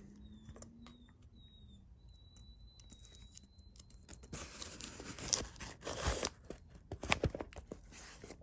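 Packaging being torn open by hand, a run of loud ripping rasps starting about halfway through, after a few faint clicks.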